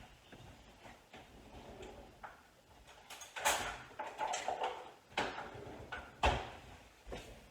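Kitchen handling noises: a run of short knocks and scrapes from utensils and the pan being moved, the loudest about halfway through and again past six seconds.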